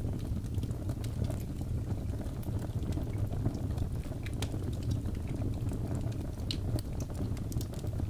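Wood logs burning in a fireplace: a steady low rumble of flame with scattered sharp crackles and pops.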